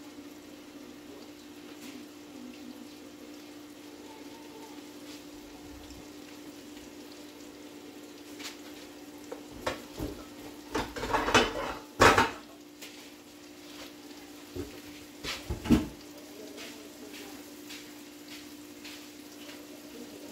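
Pots, pans and utensils knocking and clinking in a run of sharp clatters from about 8 to 16 seconds in, loudest around 12 seconds. Under them are the faint steady sizzle of chicken browning in a frying pan and a low hum.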